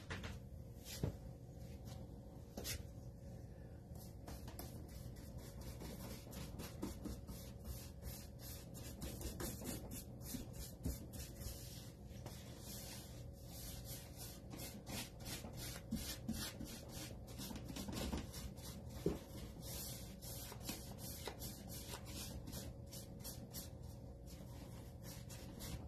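Paintbrush bristles stroking chalk-style paint onto the wooden back panel of a bookshelf: many short, quick, faint brush strokes, blending the colour in.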